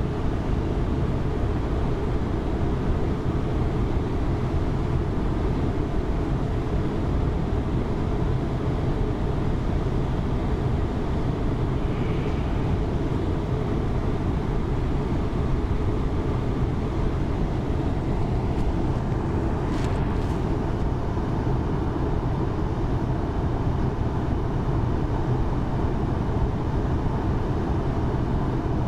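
Steady low rumble of a river cruise ship under way, unchanging throughout, with a brief sharp click about twenty seconds in.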